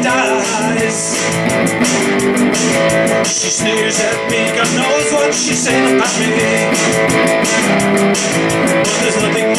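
Electric guitar strummed in a steady rhythm, playing the chords of a song.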